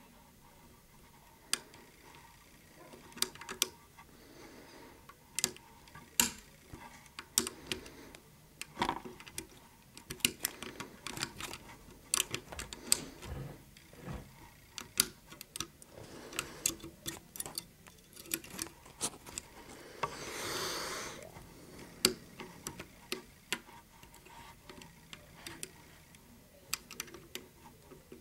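Small, irregular metal clicks and taps of a lock pick and tension wrench working the levers of a 7-lever safe-door lever lock as it is being picked. About 20 seconds in, a brief rushing noise lasts about a second.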